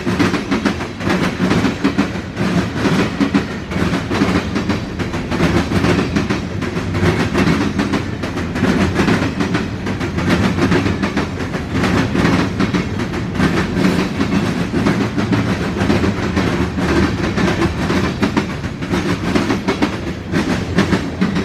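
Long freight train's cars rolling past in a steady rumble, wheels clicking over the rail joints.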